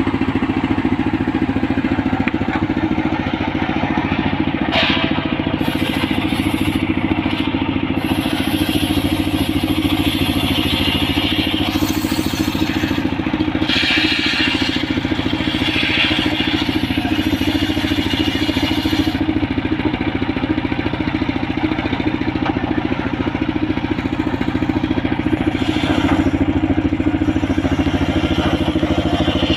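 Homemade engine-driven circular sawmill running steadily while its large blade cuts coconut-palm logs lengthwise. There are several stretches of louder, higher-pitched cutting noise as the wood is fed into the blade.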